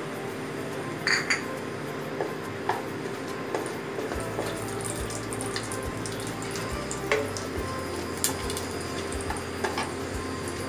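Bay leaf and whole garam masala (cardamom and cinnamon) sizzling in hot mustard oil, with scattered sharp crackles. A low hum comes in about four seconds in.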